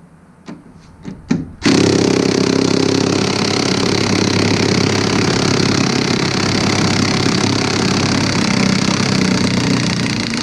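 Cordless impact wrench hammering on a snowmobile trailing-arm bolt to loosen it: a few short trigger blips in the first second and a half, then a long, unbroken run of hammering.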